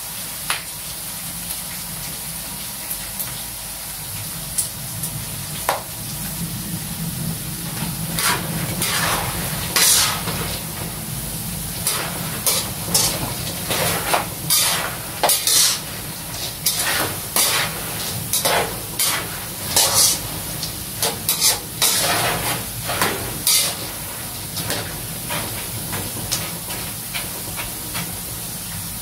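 Peanuts deep-frying in oil in a metal wok, a steady sizzle, with a metal spatula scraping and knocking against the wok as they are stirred. The scrapes come thick and fast through the middle stretch and thin out near the end.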